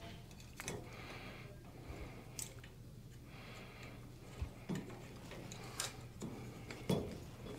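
A handful of light, sharp metallic clicks and ticks from a hex key working the pinch screw on a roller collar, loosening it so the collar can be slid into line. The loudest click comes near the end.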